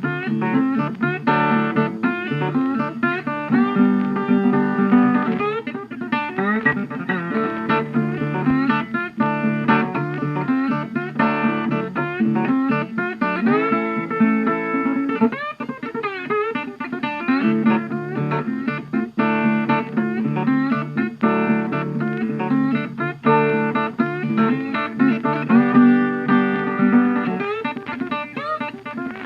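Background music: blues-style acoustic guitar picking, with sliding notes.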